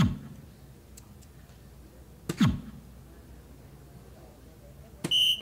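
Three soft-tip darts strike a DARTSLIVE electronic dartboard about two and a half seconds apart. The first two hits each trail off in a short falling-pitch sound from the machine. The third hit is followed by a brief high electronic beep as the board registers the turn's last dart.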